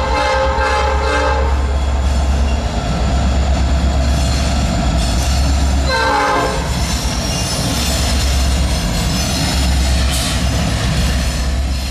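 Norfolk Southern SD40E helper locomotives passing, their diesel engines running with a deep steady drone. A multi-tone train horn sounds at the start and again about six seconds in, its pitch dropping the second time.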